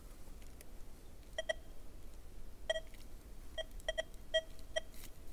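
XP Deus 2 metal detector giving short, mid-pitched beeps, singly and in quick pairs, starting about a second in as the coil sweeps over a coin target buried deeper in the ground. The signal comes and goes at this depth, though the machine is still picking the target up.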